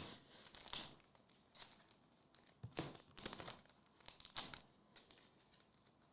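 Trading-card packaging being handled and crinkled in a few short, irregular rustles.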